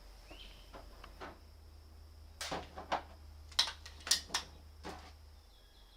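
A handful of short, sharp clicks and light knocks, about six in the middle few seconds, from bullets and the big-bore air pistol being handled.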